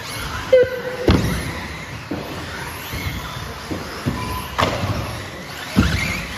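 Radio-controlled racing cars running on a carpet track. Motors whine up and down, with a sharp knock or thud about once a second.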